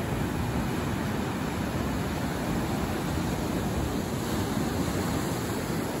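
Ocean surf breaking and washing over the shallows, a steady rushing hiss.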